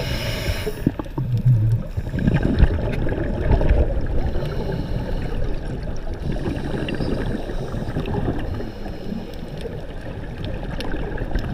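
Sea water rushing and gurgling, with a few dull knocks in the first few seconds.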